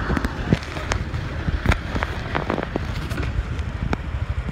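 Low steady rumble of a Honda motor scooter and street traffic, broken by a quick run of sharp clicks and knocks, thickest around the middle.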